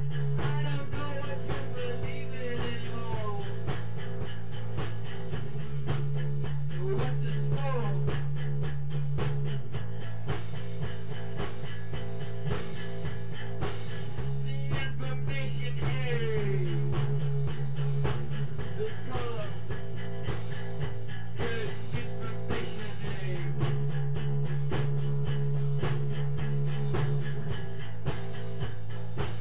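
Instrumental psychedelic rock jam played live. Over a steady fast beat, a low held bass switches between two notes every four to five seconds, and lead notes slide up and down in pitch.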